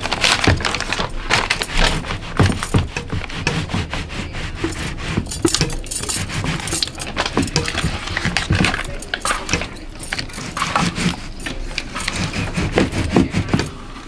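Metal bangle bracelets jangling on a wrist, mixed with a spatula scraping and knocking inside a plastic bucket, in quick irregular strokes.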